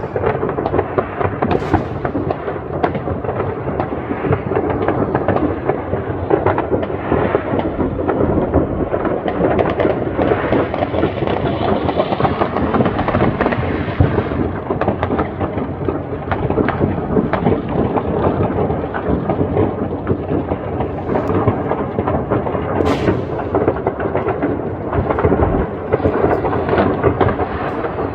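Many fireworks going off at once: overlapping bangs and crackling merge into a continuous rumble, with a couple of sharper cracks standing out, one near the start and one about 23 seconds in.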